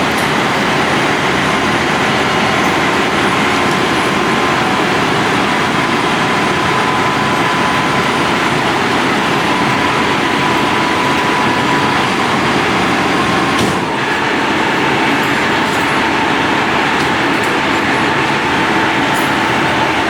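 Loud, steady running noise of a heavy vehicle with a held high whine. A short knock comes about fourteen seconds in, after which the whine sits slightly lower.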